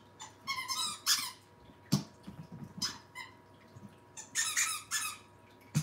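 Rubber squeaky dog toy squeaking in short, high-pitched squeals: a run of them about a second in and another a little after four seconds. A couple of sharp knocks fall between them.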